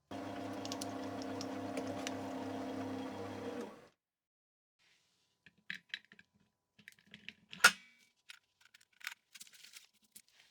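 A small electric motor humming steadily for nearly four seconds, then stopping. Afterwards come scattered light clicks and one sharp knock.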